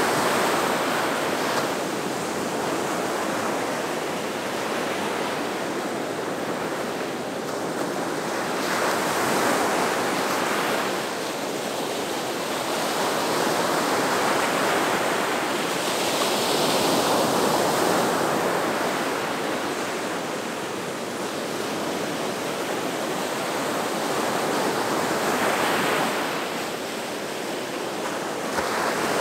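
Ocean surf breaking on the shore: a continuous wash of waves that swells and eases every few seconds as each wave rolls in.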